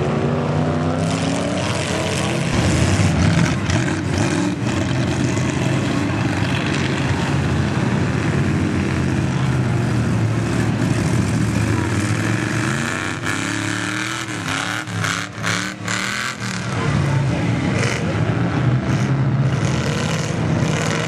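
Lifted mud truck's engine revving hard as it churns through a deep mud hole, its pitch climbing and falling with the throttle, the sound rising once sharply about two-thirds of the way through.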